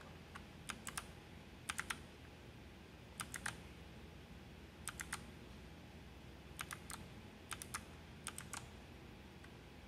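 Keys of a Rakk Lam-Ang Pro mechanical keyboard being pressed: short sharp clicks, mostly in quick twos and threes, coming every second or so with gaps between, as Fn key combinations step through its lighting modes.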